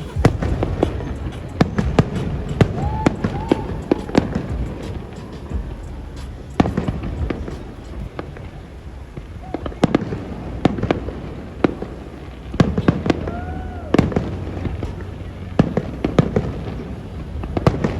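Aerial fireworks display: repeated sharp bangs and pops over a continuous low rumble. The bangs thin out for a few seconds in the middle. A few brief tones rise and fall.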